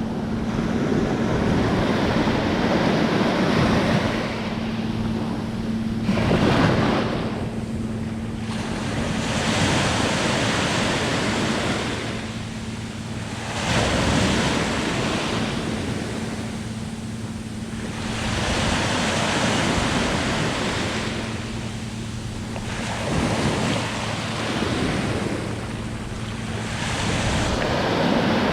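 Sea waves breaking and washing up a beach, the surf swelling and easing in repeated surges every few seconds. A faint steady low hum runs underneath.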